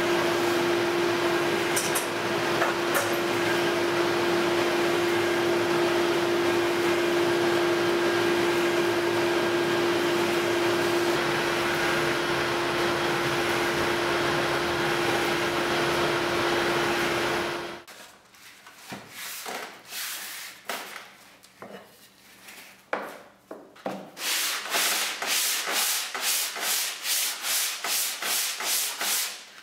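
Wide-belt calibrating sander running with a steady hum as boards feed through, cutting off sharply about two-thirds of the way in. Then hand sanding follows: a hardwood strip is rubbed back and forth on a sheet of sandpaper, at first irregularly, then in regular strokes about two to three a second.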